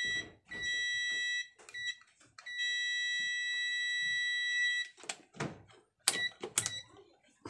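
Multimeter continuity beeper sounding a steady high beep in on-off stretches as the test probes touch the compression driver's voice coil terminals, showing that the resoldered coil lead is connected. The longest beep lasts about two and a half seconds. In the second half come a few clicks of the probes being handled and two brief chirps of the beep.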